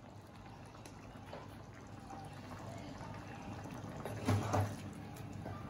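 Thick curry gravy simmering in a nonstick pan, a wet bubbling hiss that slowly grows louder. About four seconds in, a spatula stirs through it with a couple of wet scraping knocks against the pan, and another lighter one near the end.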